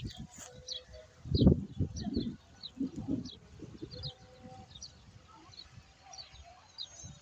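Small birds chirping repeatedly, short high calls about twice a second, over irregular low rumbles and thuds. The rumbles are loudest about a second and a half in and die down after about four seconds.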